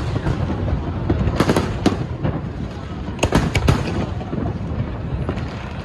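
Aerial fireworks bursting overhead: clusters of sharp bangs, about a second and a half in and again around three and a half seconds in, over a steady crackle and low rumble of further shells.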